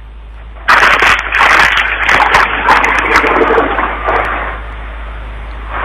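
Loud rustling and crackling handling noise with scattered clicks. It starts abruptly under a second in and eases off somewhat in the last second.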